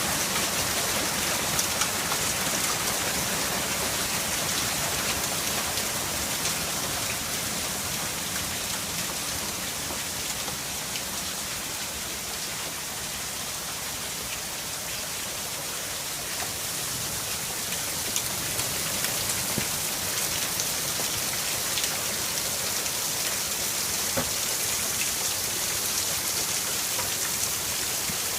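Hailstorm: a dense, steady hiss of hail and rain striking, with many small sharp ticks of individual stones. It eases a little midway and builds again later.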